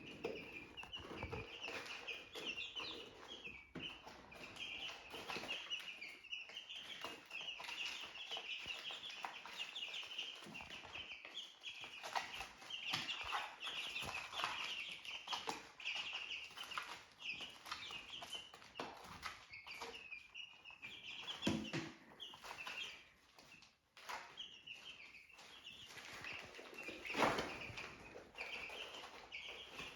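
A brood of young chicks peeping continuously in many overlapping high chirps, with a couple of louder knocks in the brooder.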